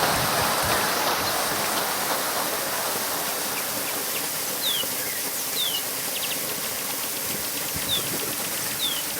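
Steady rush of water from a small waterfall, about four metres high. In the second half, short, high chirps that slide downward come about once a second.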